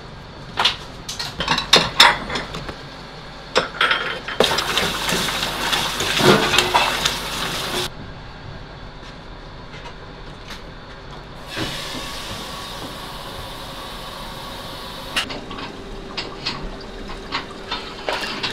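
Kitchen prep sounds at a wooden cutting board: scattered knocks and knife taps on the board, with a loud stretch of steady hiss about four seconds in that stops after about three seconds, and a softer one from about eleven seconds in.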